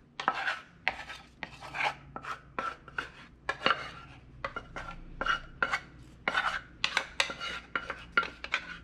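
A wooden spoon scraping thick, creamy sauce out of a saucepan in short repeated strokes, about two to three a second.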